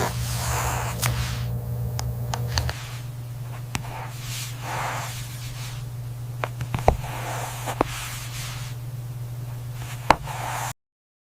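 Steady machine hum with swelling hisses and scattered sharp clicks and taps. The hum drops in level a little under three seconds in, and all sound cuts off suddenly near the end.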